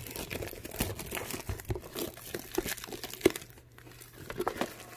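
Plastic shrink wrap crinkling and crackling as it is pulled off a cardboard card box and handled, in irregular bursts with one sharp crackle about three seconds in.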